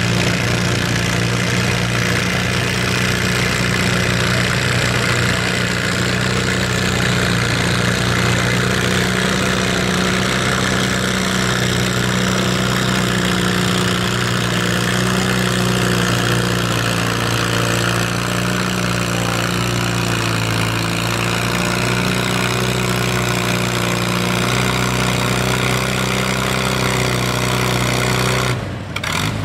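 Allis-Chalmers D-17 farm tractor engine running steadily under load as it pulls a weight-transfer sled, its pitch holding nearly constant. The sound drops away suddenly near the end.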